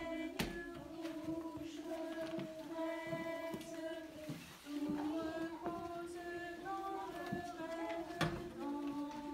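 Slow singing of a gentle melody in long held notes. A sharp knock comes about half a second in and another near the end.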